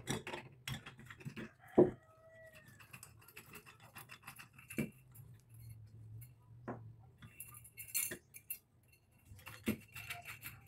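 Small metal chandelier parts and pliers being handled, giving scattered light clinks and clicks, with one sharper knock a little under two seconds in.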